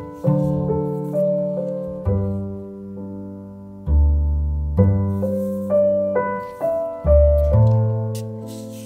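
Background piano music: a slow tune of struck notes that fade, over deep bass notes.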